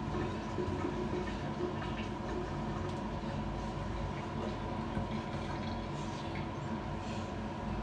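Wet hands working foaming facial cleanser into a lather, with faint small wet clicks and drips over a steady low hum.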